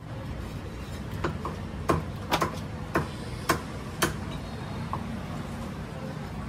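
A heavy butcher's knife knocking and chopping on a wooden block as a whole chicken is cut up: a string of sharp, irregularly spaced knocks that stops about five seconds in, over a steady low background hum.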